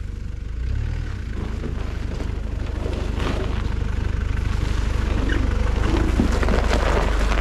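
4x4 SUV driving toward and past on an icy, snowy track: a low engine rumble under the crunch and crackle of tyres on snow and ice, getting louder as it comes close.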